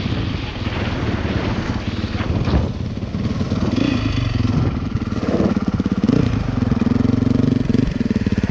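Honda CRF450 dirt bike's single-cylinder four-stroke engine running, its firing pulses rapid and even.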